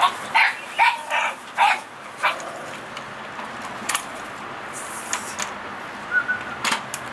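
American Bully puppy giving about six short yips in the first two seconds, followed later by a couple of sharp clicks.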